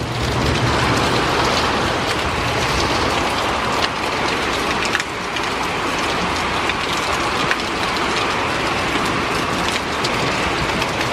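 Heavy thunderstorm rain pouring steadily, with a few sharp taps of drops striking close by.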